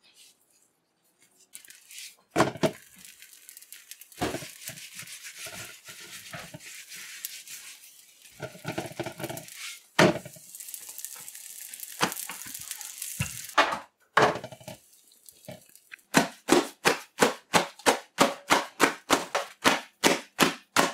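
Oil roti sizzling on a hot cast-iron tawa, with a few sharp knocks as it is handled and flipped. About sixteen seconds in, the cooked roti is clapped between the palms, a fast, even run of slaps about three a second, which beats it soft and flaky.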